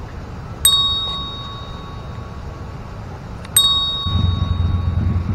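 Two bell-like dings from a subscribe-button overlay's sound effect, about three seconds apart, each struck sharply and ringing on for about two seconds as it fades.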